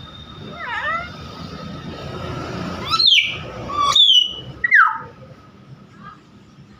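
Nias hill myna calling: a short call a little under a second in, then three loud, piercing whistles that slide sharply down in pitch, about three, four and nearly five seconds in.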